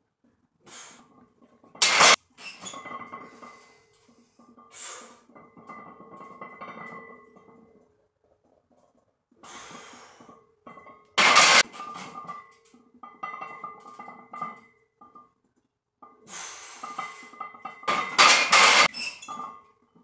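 Background music with steady held tones, broken by loud, short bursts of noise roughly every eight seconds from a heavy barbell incline bench press being done as single reps.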